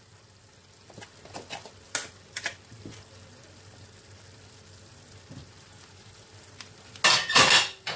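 A few light clicks and knocks, then about seven seconds in a loud, short burst of sizzling as butter goes into the hot pot of jollof rice.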